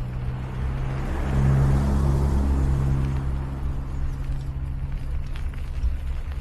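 A car driving past, its tyre and engine noise swelling to a peak about a second and a half in and then fading away, over a steady low hum.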